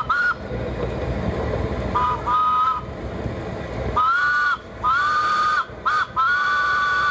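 Steam whistle of a 2-ft-gauge Crown Locomotive Works steam locomotive, sounding two notes together. It gives a few short toots, then from about four seconds in a long, long, short, long sequence, the pattern of a grade-crossing signal. The train's running rumble goes on underneath.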